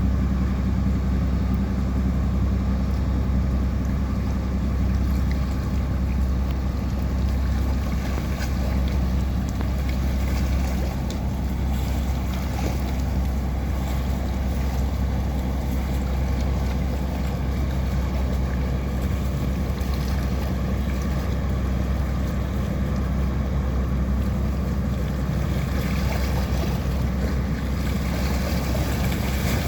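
A passing boat's engine running steadily, with a low drone and a few steady tones above it.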